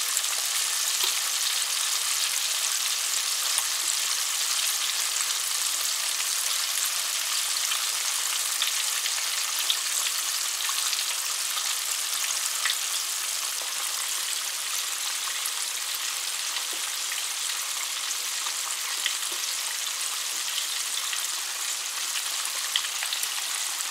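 Flour-coated chicken wings deep-frying in hot oil: a steady, dense sizzle with scattered small crackles and pops.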